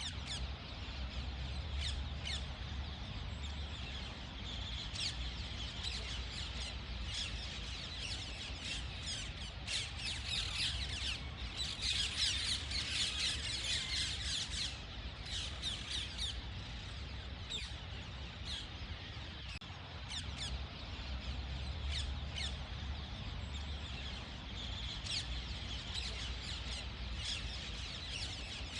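Parrots calling: a steady run of quick chirps and squawks, busiest about halfway through, over a low rumble.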